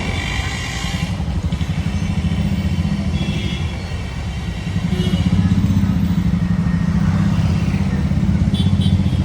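Street traffic with a small engine, like a motorcycle's, running close by with a fast, steady beat. It grows louder about five seconds in.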